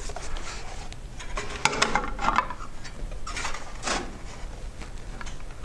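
Light clicks, knocks and rubbing as a hydraulic landing-gear pump unit with a plastic reservoir is handled and set into place on a metal tube frame. The knocks come in small clusters, around two seconds in and again around three and a half to four seconds in.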